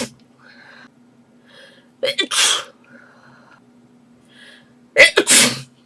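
A girl sneezing twice, about three seconds apart. Each sneeze is a quick sharp intake followed by a loud burst, with faint breathing between them.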